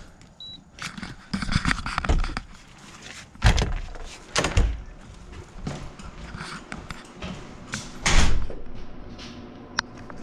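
A key card reader gives one short high beep as the card is held to it. The door's latch and handle then click and rattle as it is opened, and a few heavy door knocks and thumps follow, the loudest about eight seconds in.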